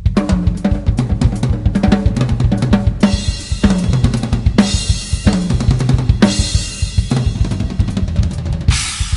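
A 2003 Premier Elite Series birch-shell drum kit played fast, with rapid bass drum, snare and tom strokes. From about three seconds in, crash cymbals are struck about every second and a half.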